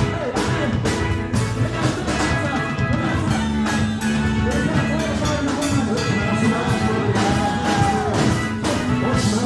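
Gospel music with a drum beat under held instrumental tones.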